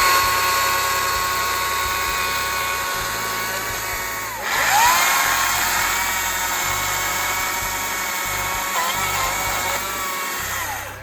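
Electric chainsaw motor spinning up with a rising whine to a steady high pitch while cutting firewood. About four seconds in it stops and spins up again, wavers briefly near nine seconds as it works, and winds down just before the end.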